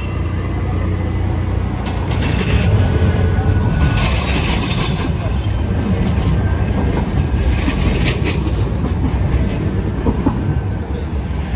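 Tram passing on street rails: a loud, steady rumble with wheel-on-rail clatter, swelling about two to five seconds in and again around eight seconds.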